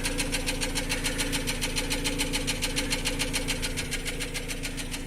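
Nissan Almera N16 engine idling with a rapid, even ticking from the valvetrain: the valve knock the car is being shown for.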